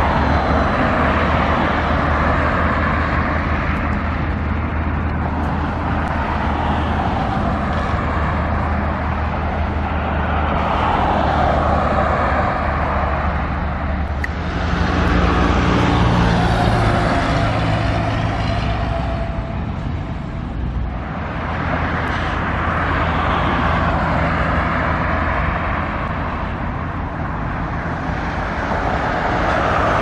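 Road traffic passing continuously, cars swelling and fading one after another. Around the middle, a vehicle with a deeper engine note drones by for several seconds.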